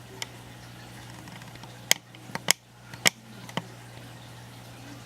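About six sharp clicks and knocks, clustered between two and four seconds in, over a steady low hum.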